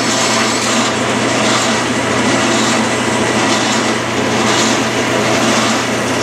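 Clausing lathe running steadily while a half-inch two-flute ball end mill, fed in from the tailstock, cuts into a 3/4-inch aluminum bar spinning in the three-jaw chuck, throwing off curling chips as it forms a 1/4-inch internal radius.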